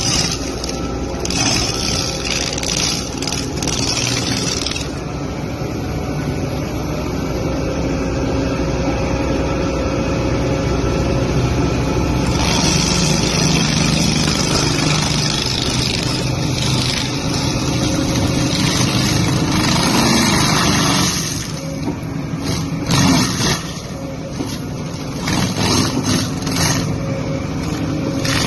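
Excavator diesel engine running under load with a mulcher head working, the engine note shifting as rough grinding noise swells and eases.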